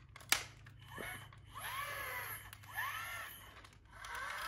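Plastic joints and gears of a Super Poo-Chi robot dog squeaking as its limbs are worked by hand: a sharp click just after the start, then short rising-and-falling squeaks about once a second, four in all. The gears are being checked and seem intact.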